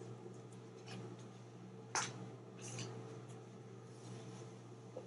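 Quiet room tone with a steady low hum, broken by a few faint clicks and one sharper click about two seconds in.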